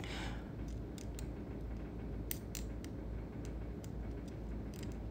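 Quiet steady room hum with a scattered run of faint small clicks and ticks from handling the stain syringe, its bent metal tip working in the tooth's fissure.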